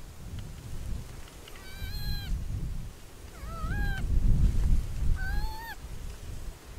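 An animal calling three times: short, rising, clear-pitched cries about a second and a half apart, over a low rumble.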